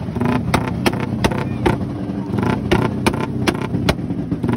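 Racing underbone motorcycle with twin carburettors and an open aftermarket exhaust, revved hard and held high while standing still, with sharp pops about two or three times a second.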